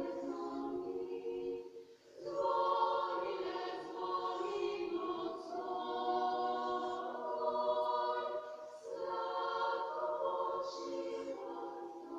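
Women's choir singing in long held phrases, with a short break between phrases about two seconds in, heard from a television's speakers.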